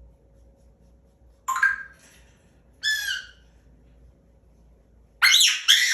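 African grey parrot whistling loudly: two single calls that bend in pitch, about a second and a half apart, then a louder quick pair near the end. These shrill whistles are the 'bad noise' the bird is being scolded for.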